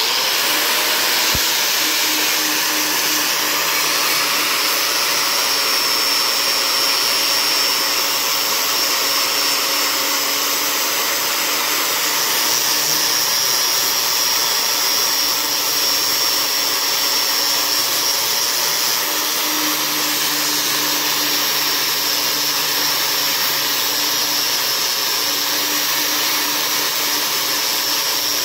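DeWalt angle grinder with an 80-grit sanding pad grinding gel coat and paint off a fibreglass sheet down to bare glass. It starts up at the very beginning, the pitch rising quickly, then runs steadily with a high whine as the disc works the surface.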